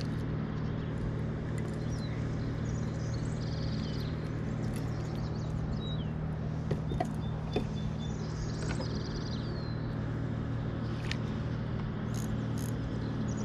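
Outdoor pond ambience: a steady low hum, with small birds chirping on and off and a few light clicks about seven seconds in.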